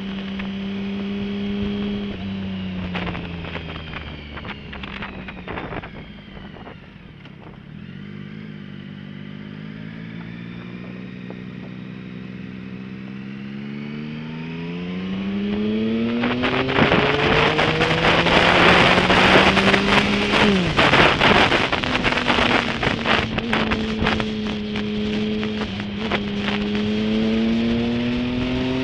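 Motorcycle engine heard from the rider's seat: it slows with falling pitch, then accelerates with pitch rising steadily, drops sharply at a gear change about two-thirds of the way through, and rises again. Heavy wind buffeting on the microphone comes in as speed builds.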